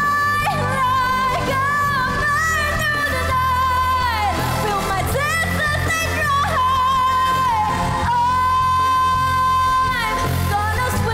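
A woman singing a pop song, holding long notes with a wavering vibrato over a backing track with a steady bass line.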